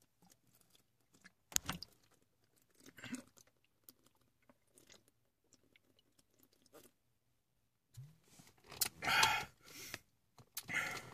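A man drinking a long swig from a 40-ounce glass bottle of malt liquor: faint gulps, swallows and small clicks of the glass bottle, then louder breathing and mouth sounds about eight seconds in, after the bottle comes down.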